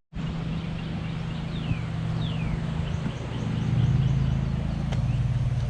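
Lawn mower engine running steadily with a low drone that swells a little about four seconds in. Two short descending bird calls come in the first half, with faint high chirps after.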